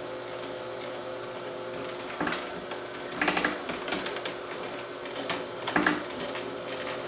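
Electric juicer motor running with a steady hum as coconut pulp is pressed down through it for a second pass, with a few louder short bursts of grinding noise about 2, 3 and 6 seconds in.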